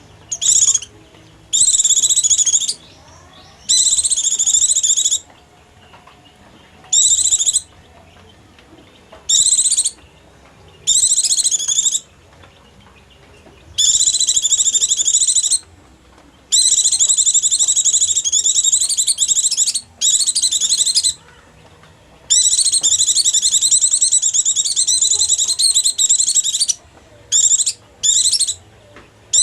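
White-eye (pleci) calls used as a lure for wild white-eyes: bursts of rapid, high twittering, some short and some running several seconds, with brief pauses between them.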